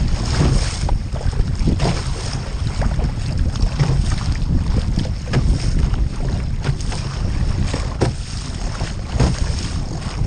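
Wind buffeting the microphone with a steady low rumble, over water splashing and sloshing around a surf ski kayak as it is paddled, in short irregular splashes.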